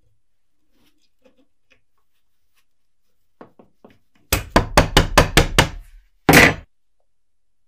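A few faint clicks, then a quick run of about eight sharp knocks, about five a second, followed by one heavier, longer knock.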